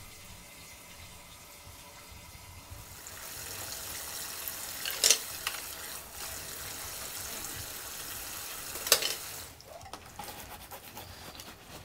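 Tap water running into a bowl of soapy dishes being washed, with two sharp clinks of metal utensils about five and nine seconds in. The running water stops near the end.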